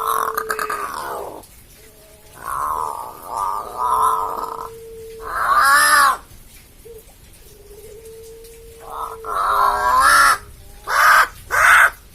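Crow giving a run of strange, harsh calls: several long, wavering ones, then two short, sharp ones near the end.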